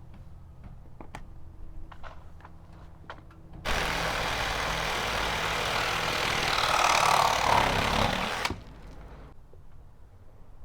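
An engine idling with a low steady hum and a few light clicks. About three and a half seconds in, a loud rushing noise starts abruptly, runs for about five seconds and cuts off suddenly.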